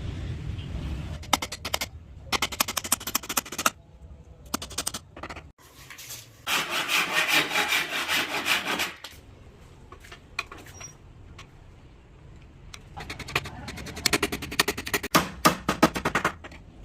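Hand abrading of an old wooden tabletop: quick back-and-forth rubbing strokes in several bursts, with a longer, denser stretch of rubbing a little before the middle.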